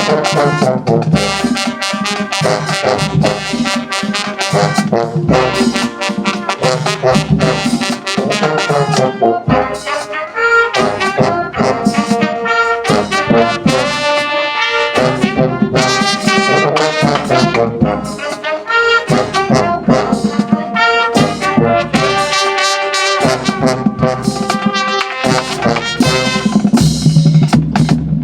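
High school band playing a loud brass-heavy tune, trumpets and trombones over drums.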